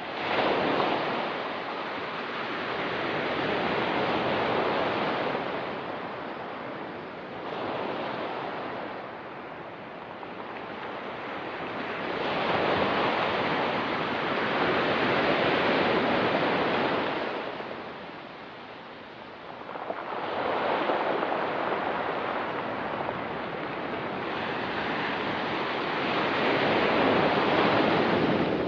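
Ocean surf washing onto a rocky beach, each wave swelling into a rush and then fading, about every four to eight seconds.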